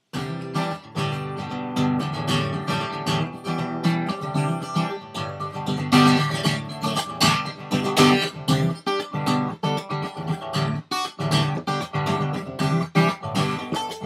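Acoustic guitar strummed in a steady rhythm of chords, the instrumental intro before the singing.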